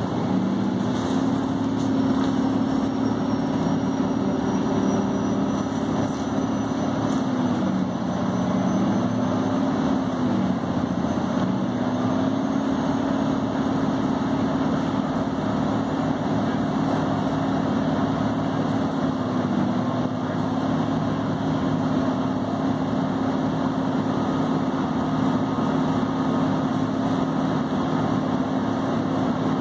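City bus under way, heard from inside the passenger cabin: a steady drivetrain hum over road noise, the hum's pitch dipping briefly three times.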